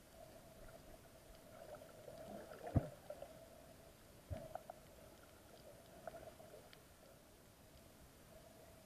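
Faint, muffled underwater ambience picked up by an action camera in its waterproof housing: a low steady hum with two dull knocks, the louder one about three seconds in and another about a second and a half later.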